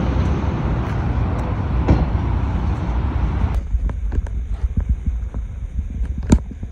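Car engine running loud with a low throbbing rumble and a heavy rushing noise over it. The rushing stops about halfway through, leaving the lower rumble with a few sharp pops near the end.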